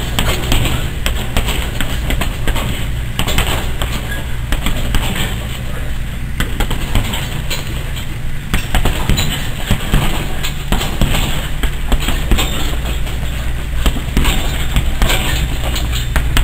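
Gloved punches thudding into a hanging heavy bag in quick, irregular flurries, over a steady low hum.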